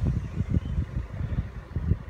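Low, uneven rumbling of wind buffeting the microphone, rising and falling in irregular gusts.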